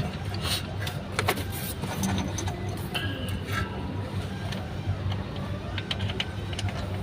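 Scattered metallic clicks and taps of hand tools working on a vehicle part, over a steady low hum.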